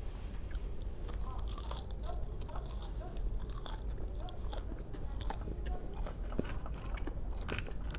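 A person biting and chewing crunchy food close to the microphone: irregular crunches and wet mouth sounds over a low steady hum.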